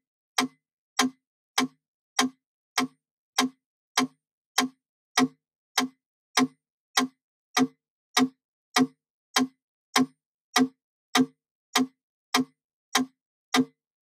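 Wooden mechanical metronome ticking steadily at 100 beats per minute: a sharp click every 0.6 seconds, even and unaccented.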